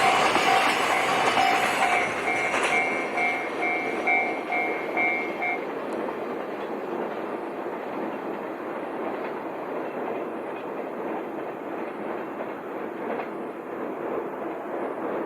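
Train passing a level crossing and running away, its noise fading over the first few seconds into a lower steady rumble. The crossing's warning bell rings in a fast even pulse and stops about five and a half seconds in.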